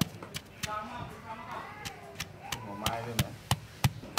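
Stone pestle pounding a spice paste of lemongrass, chili, shallot and garlic in a stone mortar, a steady run of dull strikes about three a second.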